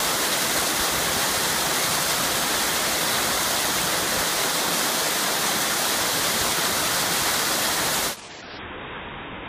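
A 16-foot two-tier waterfall pouring into a pool in a narrow basalt slot: a loud, steady rush of falling water. About eight seconds in, it drops abruptly in level and loses its high end.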